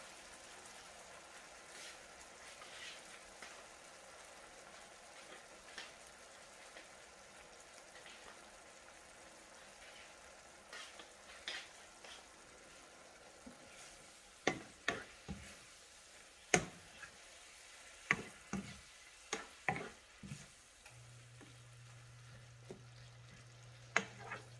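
A stir fry of vegetables and fermented fish sizzling faintly in a frying pan over low heat while the tomatoes cook down. Past the middle a spoon knocks and scrapes against the pan in a run of sharp clacks as the food is stirred.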